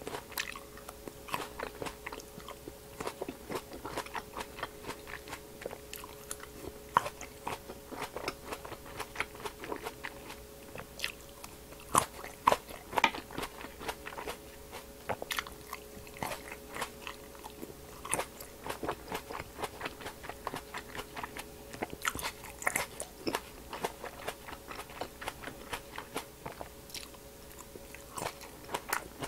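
Large green grapes being bitten and chewed close to a clip-on microphone: crisp skins popping and juicy crunching in quick, irregular clicks, with a few louder bites scattered through.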